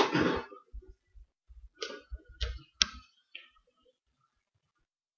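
Handling noise from a large book being held and shifted in front of a microphone: a sharp knock at the start, then four or five short clicks and taps over the next couple of seconds.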